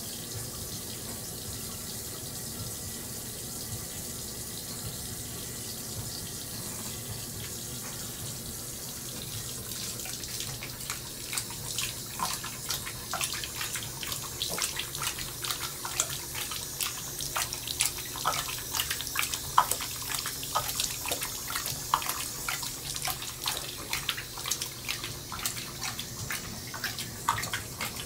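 Bathroom sink tap running steadily. From about ten seconds in, a Great Dane laps from the stream, giving fast, irregular splashing against the running water.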